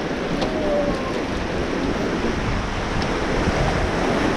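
White-water river rapids rushing and churning: a steady, loud noise of turbulent water.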